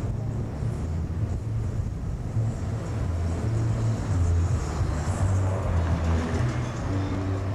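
Low, steady rumble of a car driving, engine and road noise heard from inside the cabin.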